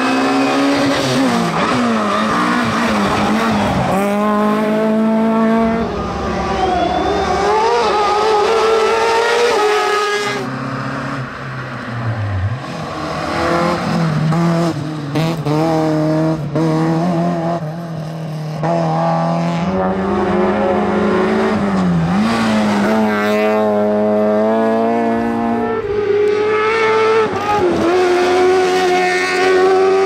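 Rally hillclimb cars driven hard through bends, one after another. The engines rev up repeatedly, and the pitch drops sharply at each gear change or lift. Light tyre squeal can be heard.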